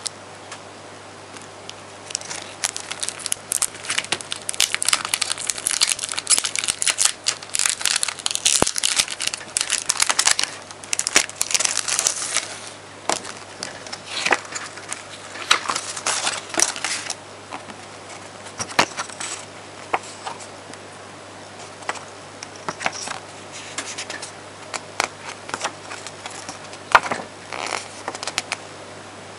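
Clear plastic packaging crinkling and crackling as a screen protector film package is pulled out of its sleeve and handled, dense for the first ten seconds or so, then thinning to scattered crinkles and sharp clicks.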